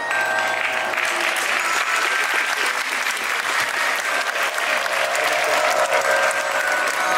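Audience applause breaks out and keeps going, many hands clapping, with music playing more softly underneath.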